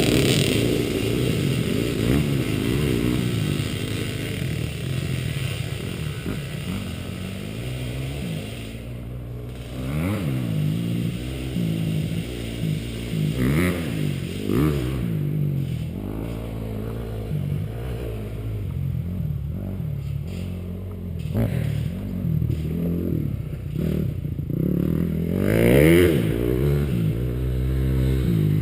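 Dirt bike engine being ridden hard, its pitch rising and falling again and again as the throttle is opened and closed, with louder passes about ten seconds in, near the middle and near the end.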